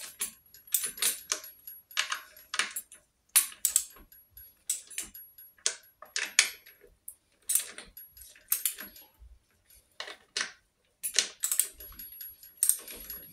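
Socket ratchet clicking in short, irregular strokes as the stator retaining nuts are run down on a Norton Commando engine, with small metal clinks of the socket on the nuts.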